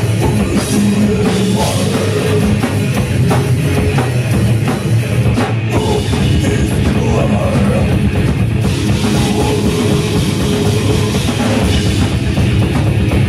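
Death metal band playing live: electric guitars and a drum kit, loud and continuous.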